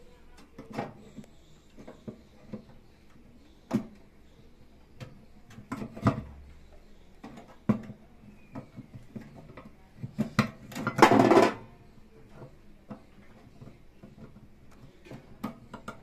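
Small clicks and knocks of a microwave synchronous turntable motor being handled and pressed into its mount on the oven's sheet-metal casing, with a louder clatter lasting under a second about eleven seconds in.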